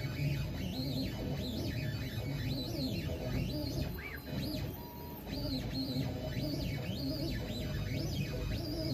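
Stepper motors of a Onefinity CNC driving the router carriage through a dry run with the router switched off: a whine that keeps sweeping up and down in pitch as the axes speed up and slow down, easing off briefly about four seconds in.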